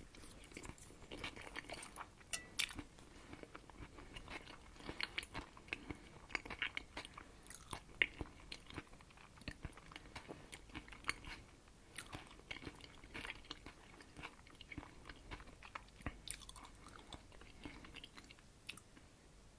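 Close-up chewing of herring-under-a-fur-coat salad: soft wet mouth sounds with many short, irregular clicks and smacks.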